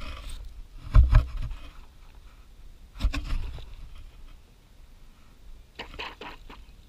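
A stretchy Wubble ball packed with water balloons being handled, giving rubbery scraping and rustling. There are dull thumps about one second and three seconds in, and a quick cluster of clicks near the end.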